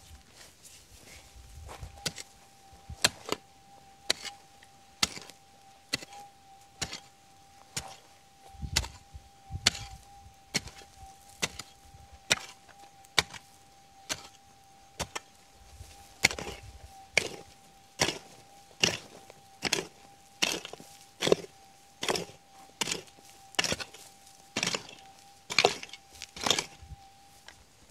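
A pick striking hard, dry stony ground over and over, about one blow a second, while digging out a detector target. Under it a metal detector's steady thin tone runs on unbroken.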